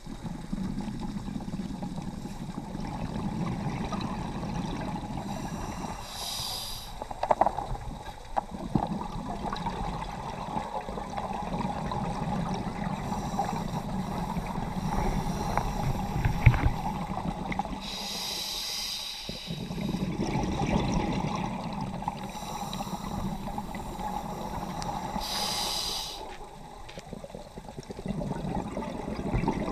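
Scuba diver breathing through a regulator underwater: a steady rumble of water noise with a hissing breath three times, several seconds apart, and a few knocks.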